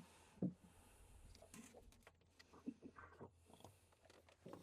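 Near silence with a few faint clicks and taps, the clearest about half a second in; no steady pump hum.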